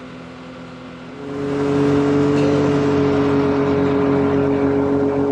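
Can-Am Maverick X3 side-by-side's engine running steadily, then about a second in the throttle opens and it gets much louder, holding a steady, even note under load.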